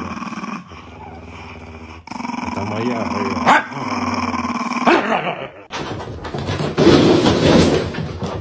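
A small Jack Russell-type terrier growling and snarling over food, with two sharp barks or snaps in the middle. Near the end, a loud burst of noisy rustling and clatter.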